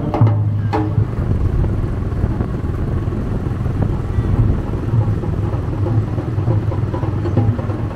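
Motorcycle engine running steadily with road and wind noise, heard from the rider's seat while moving through traffic. A couple of sharp knocks come near the start.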